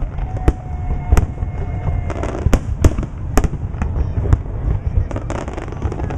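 Aerial fireworks bursting: loud, sharp bangs at irregular intervals, about one or two a second, over a continuous low rumble and crackle.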